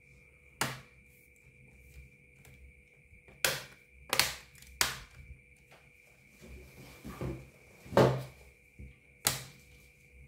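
Plastic bottom cover of a Lenovo IdeaPad 330 laptop being pressed shut, its clips snapping into place in about six sharp clicks, the loudest a little past the middle, over a faint steady high whine.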